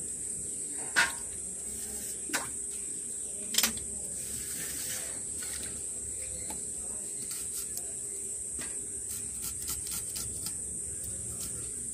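Knife cutting onions: three sharp clicks in the first four seconds, the loudest about a second in, then a scatter of lighter ticks. A steady, high insect chirring carries on underneath.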